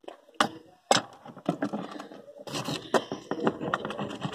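Plastic glue bottle being handled: two sharp clicks in the first second, then a run of small clicks and rustling.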